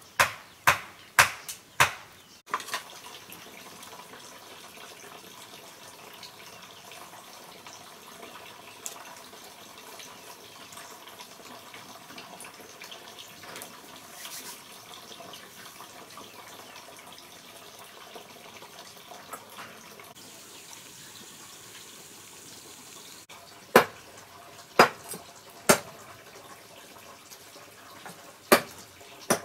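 Sharp knocks in two bursts, about five in the first couple of seconds and five more near the end, over a steady trickle of running water.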